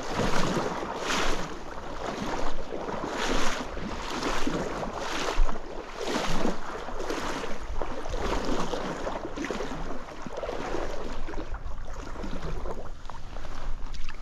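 Someone wading through a shallow stream, water swishing around the legs with each stride, about one step a second, easing off near the end. Wind buffets the microphone.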